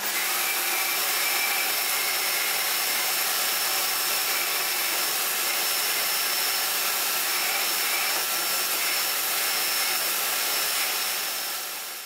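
Vacuum cleaner running through a homemade cyclone separator: a steady rushing of air with a faint high whine, fading out near the end.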